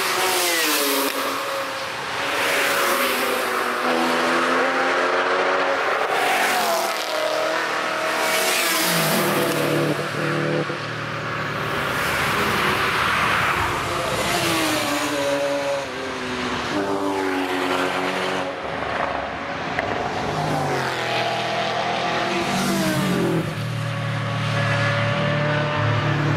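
Motorcycles and cars passing one after another at speed on a race track, their engines revving high. Each engine note drops in pitch as the vehicle goes by, a new pass every few seconds.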